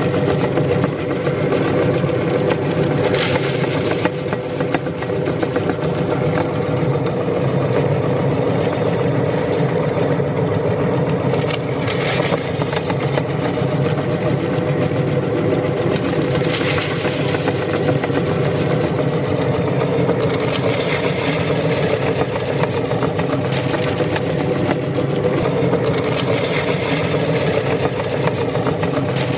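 Motor-driven meat grinder running steadily while grinding crunchy cookies: a constant mechanical hum, with short bursts of crunching every few seconds.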